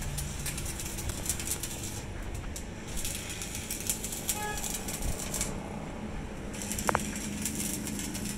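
Electric arc welding crackling in stretches of a second or two, stopping and starting again, with a few sharp metal clicks in between.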